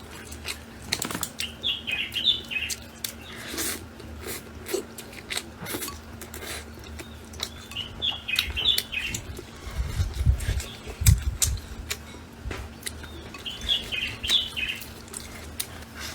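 Eating sounds: a run of sharp clicks and smacks from chewing and eating. Over them a bird chirps briefly three times, about six seconds apart.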